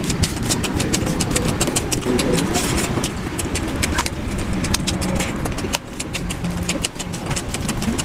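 Wet hand-eating sounds sped up to double speed: fingers squelching through rice and mutton boti curry and loud, smacking chewing, with a rapid run of sharp mouth clicks over a low rumble.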